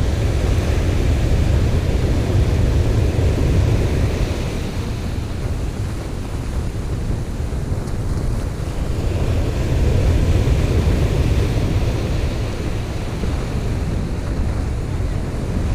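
Ocean surf breaking and washing up a sandy beach, with wind buffeting the microphone in a steady low rumble.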